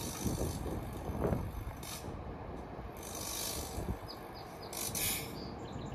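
Kawasaki M8 electric multiple unit standing with a pantograph up and its power on: a steady low rumble from its onboard equipment, broken by about four short hisses.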